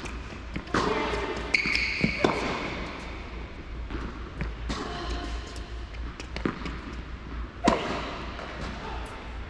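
Tennis balls being hit by rackets and bouncing on an indoor hard court: a series of sharp, irregular pops that echo in a large hall.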